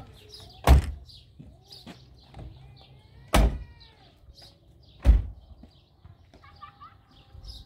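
Three loud thuds, the first two about two and a half seconds apart and the third under two seconds later, with small birds chirping.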